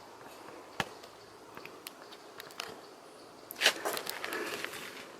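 Footsteps and scuffing on rock, with scattered light clicks and a louder scraping rustle starting about three and a half seconds in.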